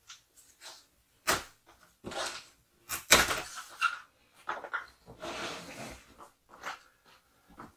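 Plastic strapping bands being pulled off a cardboard shipping carton: a sharp snap about a second in, a louder one about three seconds in, and the straps scraping and rubbing along the cardboard as the box is handled.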